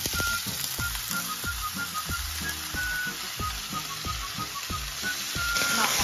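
Raw marinated chicken pieces sizzling as they are tipped into a hot frying pan on a gas burner, a steady frying hiss.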